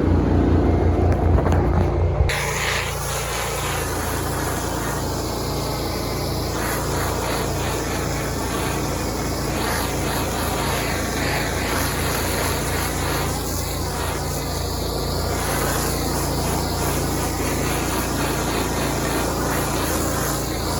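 Gas-engine pressure washer running steadily under a dense hiss of spray. It gets a little quieter and changes character about two seconds in.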